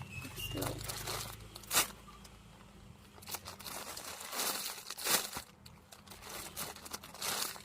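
Crinkling and rustling of plastic packaging as a jumbo squishy toy is handled, in irregular bursts with a few sharper crackles spread through.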